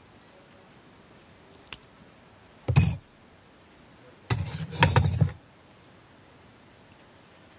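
Small metal hobby tools (scissors and tweezers) being handled at a modelling bench: one sharp click, then two loud scraping, rustling sounds, the second lasting about a second.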